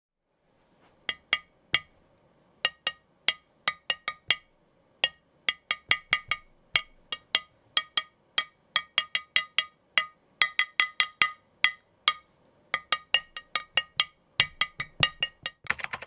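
Aluminium case of a Keychron Q1 keyboard tapped with a small hand tool: dozens of sharp, briefly ringing clinks in an irregular rhythm, starting about a second in and coming faster near the end.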